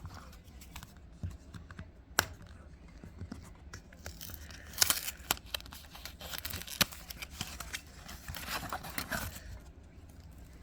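A trading card booster pack's wrapper being torn open and crinkled, with sharp clicks and rustling bursts about five seconds in and again later.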